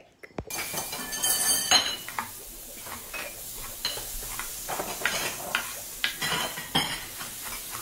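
Kitchen clatter: pans, dishes and cutlery knocking and clinking over and over, over a steady hiss.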